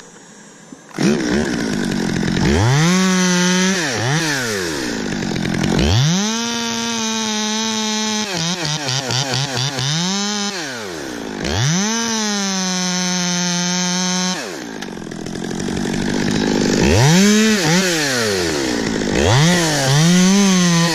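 Stihl two-stroke chainsaw coming on abruptly about a second in, then revved up to full throttle and back down several times, its pitch wavering under load while cutting pine.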